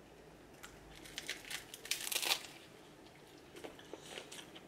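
Eating a cheeseburger with fresh salad: faint chewing and handling crackles and crinkles, a cluster about one to two seconds in and a few more near the end.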